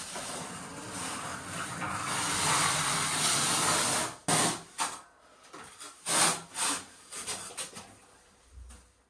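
Trowel spreading mortar across a tile wall: a steady scraping for about four seconds, then a handful of short, separate scraping strokes.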